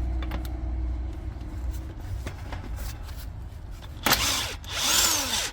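DeWalt cordless impact wrench hammering a lug nut loose in two loud bursts about four seconds in, the second longer. Before that there is a low steady rumble and a few light clicks.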